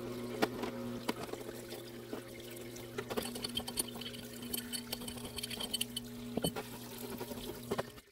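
Parts-washer pump humming steadily while solvent pours from its flexible nozzle and splashes in the tub. A brush scrubs and metal parts of a CV joint click against each other as they are cleaned. The hum cuts off just before the end.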